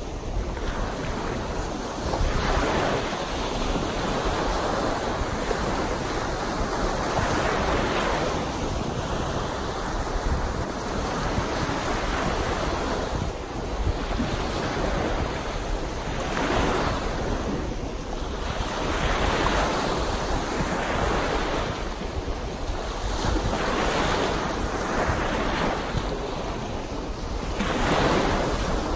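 Small wind-driven lake waves breaking and washing onto the shore, the surf swelling and falling every few seconds, with wind noise on the microphone underneath.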